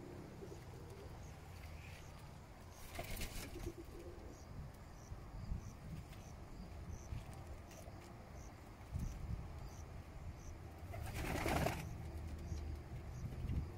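Homing pigeons cooing softly in their loft aviary, with a short flutter of wings about three seconds in and a louder burst of wing-flapping near the end.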